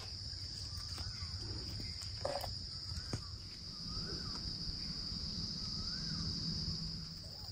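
Steady high-pitched drone of insects. A few faint bird chirps rise and fall in the middle, and there are a couple of light clicks.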